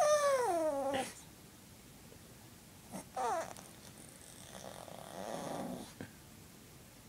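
Shih Tzu dog whining: a long, wavering cry that falls steeply in pitch, a shorter falling cry about three seconds in, then a lower, rougher moan.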